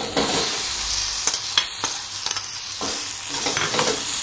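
Small stuffed brinjals sizzling in hot oil with sautéed onion and tomato in a kadai as they are tipped in and stirred, a steady frying hiss with sharp clicks and scrapes of a steel spoon against the pan.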